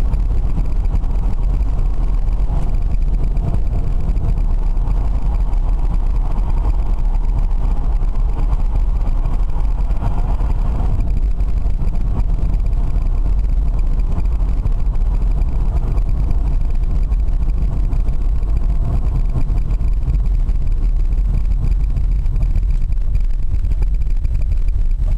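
Steady road and wind noise of an electric-converted BMW driving at motorway speed, a low rumble with no engine note. A fainter hum rises in the middle and cuts off suddenly about eleven seconds in.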